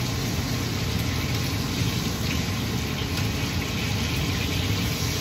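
Steady drone of a kitchen range-hood exhaust fan running over the stove, with a low hum under an even whoosh, and faint frying from pork belly cooking without oil in a stainless-steel pot.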